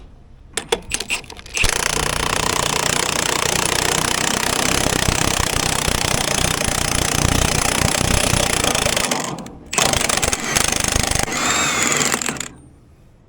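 Power drill spinning a wire brush against a rusty blower motor shaft to scour the rust off. After a few clicks it runs steadily for about seven seconds, pauses briefly, then runs again for about three seconds before stopping.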